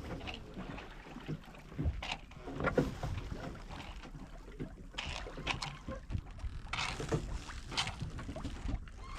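Water sloshing and slapping against the hull of a small sailboat drifting in swell with the engine off, in irregular splashes, over a low wind rumble on the microphone.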